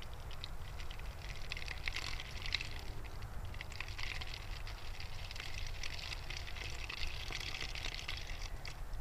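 Liquid toilet-bowl cleaner pouring in a thin stream into a plastic soda bottle: a steady crackly trickle and splash, over a low steady rumble.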